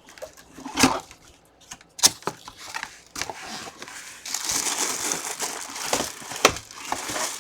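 Packaging crinkling and rustling as a full-size football helmet is pulled out of its box, with a few sharp knocks from handling. The crinkling runs on steadily from about halfway through.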